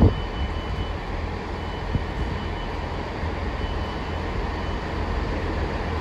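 Class 165 diesel multiple unit pulling out of the station: a steady low engine and rail rumble, with a faint high whine that comes and goes three times.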